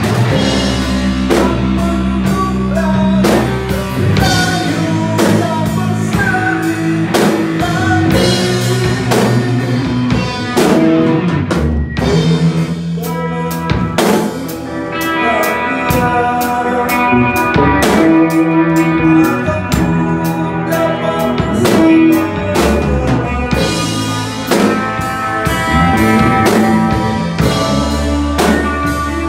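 Rock band playing live in a rehearsal room: Pearl drum kit keeping a steady beat under electric guitars and a electric bass guitar.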